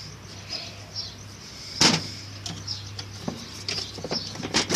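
Sharp clicks and knocks of needle-nose pliers and the plastic retaining clip of a washing machine's actuator being pried loose: a loud click about two seconds in, a few lighter taps, and another loud click near the end.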